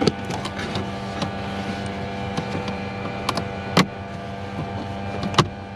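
Sharp plastic clicks and knocks, four loud ones and several lighter ones, as a connector is plugged in and an interior trim panel is fitted, over a steady mechanical hum.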